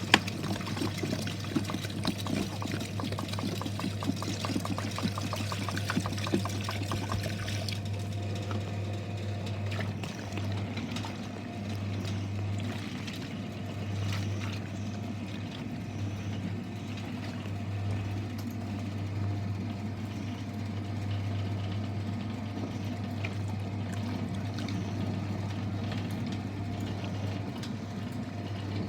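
Washing machine running water in, a rushing, pouring noise over a steady low hum; about eight seconds in the rush of water largely falls away, leaving the hum. The drum is not spinning.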